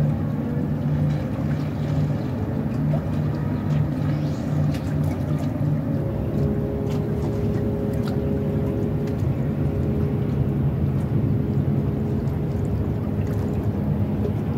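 Boat engine running with a steady low rumble; a fainter higher hum joins about six seconds in and drops away near the end.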